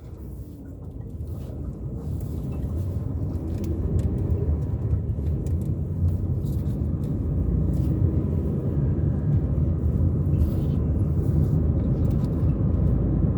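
Car driving, with a steady low rumble of engine and road noise that grows louder over the first few seconds as the car gets under way.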